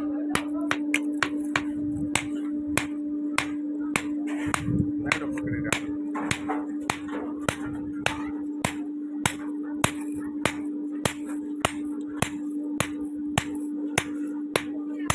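Hammer blows on an axe head at the anvil, sharp evenly spaced strikes about two to three a second, over a steady hum.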